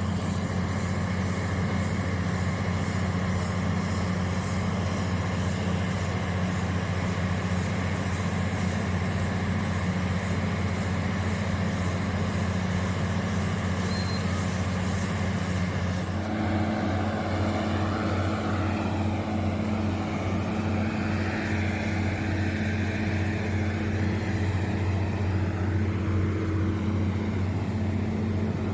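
Reverse circulation drilling rig running steadily: a constant low engine hum under a hiss of noise. About halfway through the sound changes, the hiss dropping and a new steady hum coming in.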